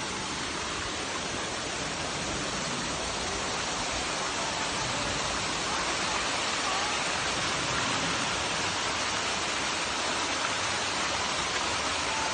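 Waterfall rushing down over rocks, a steady roar of falling water that grows slightly louder partway through.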